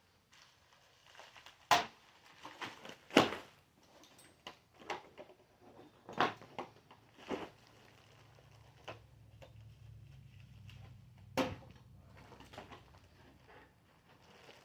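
Irregular knocks, clacks and handling noises as parts of an adjustable bed base are unpacked and moved about, about a dozen separate hits. A faint low hum runs through the middle.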